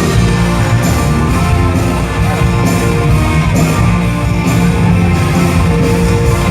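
Live rock band playing a loud instrumental passage, with electric guitar prominent over a steady drum beat.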